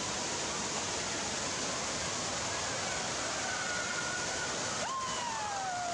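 Steady rushing and splashing of water pouring down indoor water slides and play-structure spouts, echoing in a large hall. Faint distant voices call out in the second half, one long falling call near the end.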